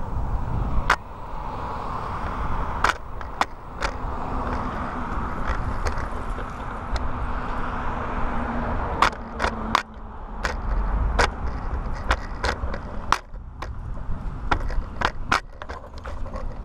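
Road traffic passing on a street, a steady tyre rush that swells and fades, with irregular sharp clicks and rattles scattered throughout.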